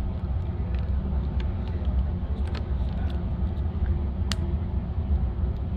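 Fuel burner of a glass-blowing furnace running at full flame: a steady low rumble, with a few light clicks and one sharper click about four seconds in.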